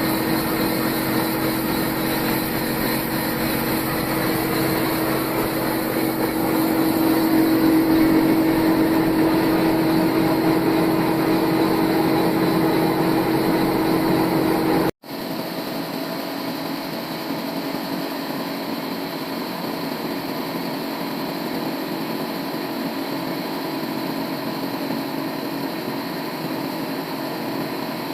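Old bandsaw sawmill running steadily as it saws a log lengthwise into a slab, with a strong steady hum. About halfway through, the sound breaks off for an instant and resumes a little quieter, with less low rumble.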